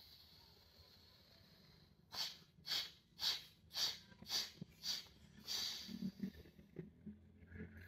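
A person breathing through the right nostril only, the left held shut with a finger: a long breath in, then six sharp, snort-like forced exhalations about two a second, then one longer breath out. This is the single-nostril pranayama kriya of vigorous puffs.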